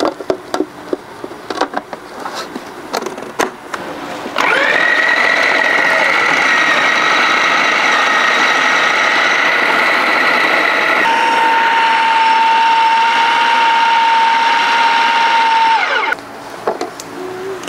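Electric food processor mincing cubed raw beef: after a few clicks and knocks, the motor starts about four seconds in and runs steadily with a high whine for about twelve seconds, its pitch shifting partway through, then winds down with a falling pitch.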